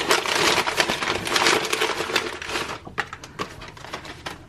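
Box packaging crinkling and rustling as it is handled, for about three seconds, then a few separate light clicks and taps.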